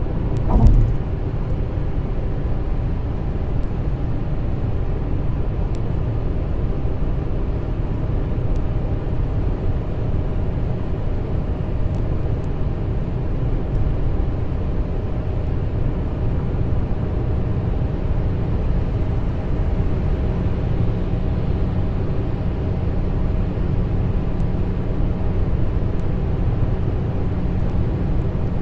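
Steady road and engine noise of a car driving at motorway speed, heard from inside the cabin, with one short thump about a second in.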